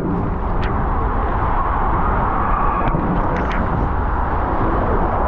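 Steady rushing of water and sliding bodies inside an enclosed water-slide tube, with a few faint ticks from bumps against the tube wall.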